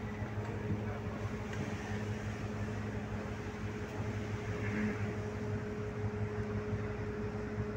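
Ferry's engine running steadily, a constant low hum with a higher tone over it, heard from on board.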